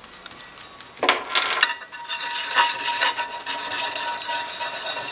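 Oiled sharpening stone rubbed back and forth across the aluminium gasket face of a Puch Maxi E50 crankcase half, to dress the joint face flat. The scraping starts about a second in and becomes continuous.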